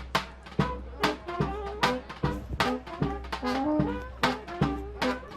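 Instrumental background music with a steady drum beat under a melody of short held notes.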